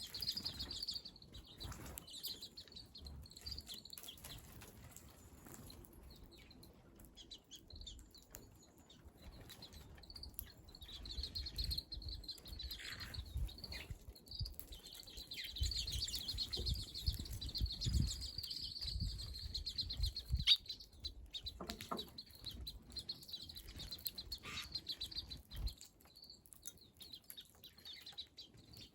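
Small wild birds chirping, with a rapid high trill that comes and goes and is strongest in the middle, over low, uneven rumbling.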